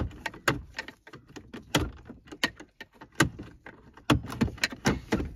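Automatic gear shifter of a Toyota Tundra being worked toward neutral with a screwdriver held in the shift-lock override slot: a dozen or so irregular clicks and knocks from the lever, screwdriver and console. The lock is being released by hand because the battery is disconnected.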